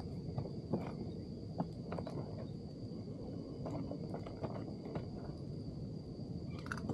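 Scattered light clicks and knocks of a small speckled trout and fishing gear being handled in a fishing kayak, with a quick run of clicks near the end. Underneath is a low steady rumble and a constant thin high-pitched tone.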